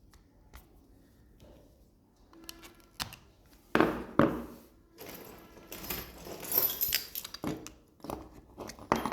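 Clicks, knocks and light clatter of a car remote key fob's plastic case and metal key blade being handled and worked apart by hand. Two sharp clicks a little under four seconds in are the loudest.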